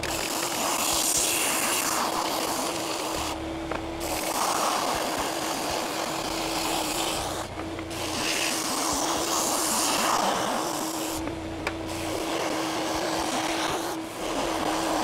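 Ridgid oscillating edge belt sander running with a steady motor hum while wood is pressed against the belt, a gritty sanding noise that comes in passes of a few seconds and breaks off briefly between them while the hum carries on. The passes are sanding scorched, burnt surfaces off the edges of the laminated wood until they are flat.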